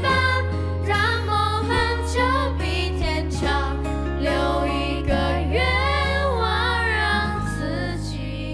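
Mandopop ballad: a sung vocal line with vibrato over steady bass and keyboard chords. The singing stops near the end while a held chord carries on and the music starts to fade.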